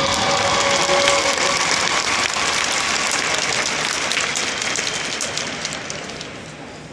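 The marching band's last held chord dies away in the first second or so, and the audience applauds, the clapping fading out over the next few seconds.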